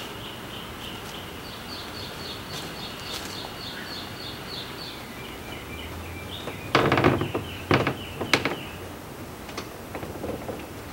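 A canoe hull knocking and scraping against the wooden step blocks of an inclined ramp as it is lifted and shifted, a loud cluster of knocks a little over halfway through. Before that, a bird chirps in a steady repeated series over outdoor background noise.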